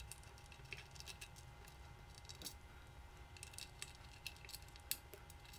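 Faint scattered clicks and small metallic taps as a screwdriver and fingers work a chrome guitar bridge plate on a wooden body, with one sharper click about five seconds in.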